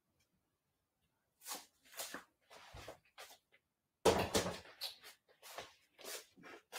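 Kitchen clatter: a string of short knocks and clunks as dishes and utensils are handled at the counter, starting about a second and a half in, with the loudest clunk about four seconds in.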